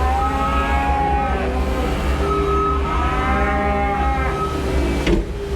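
A cow mooing twice, two long calls that rise and fall, over the steady low running of a New Holland L318 skid steer's engine. A short knock comes near the end.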